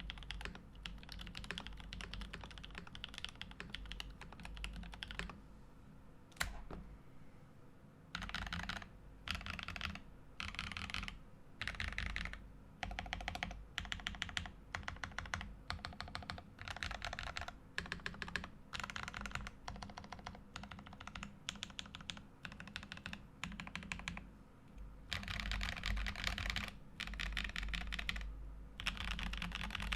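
Typing on a stacked-acrylic Switch Couture Mysterium mechanical keyboard with lubed, filmed Kinetic Labs Husky linear switches, an acrylic plate and GMK Dracula keycaps, giving a deep sound. Steady typing at first, a quieter lull with one sharp key strike, then short bursts of keystrokes with brief pauses between them, and dense typing again near the end.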